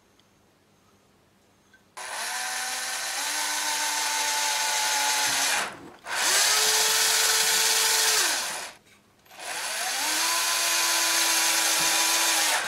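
Makita cordless drill boring holes through the plastic wall of a small project box, after about two seconds of near silence. It runs in three long bursts with short stops between them, its motor whine rising as it spins up and then holding steady.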